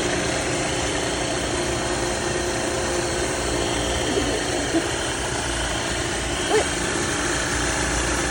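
Self-serve in-store coffee grinder running steadily, its motor grinding a load of whole coffee beans.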